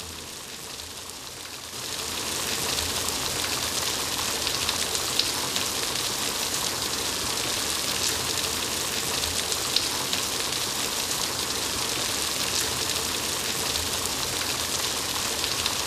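Steady rushing hiss with fine crackles throughout, louder from about two seconds in.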